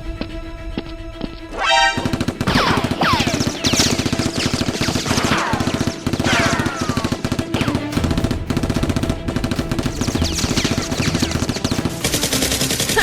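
Rapid automatic gunfire sound effects, a dense unbroken rattle of shots with falling whistling sweeps, laid over background music; the firing starts about two seconds in.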